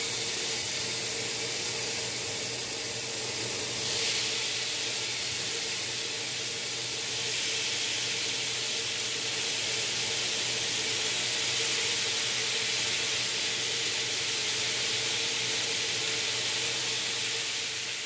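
Marinated steak strips sizzling on a hot ridged cast iron grill griddle: a steady hiss that gets louder about four seconds in and again about seven seconds in, as more strips go onto the hot iron.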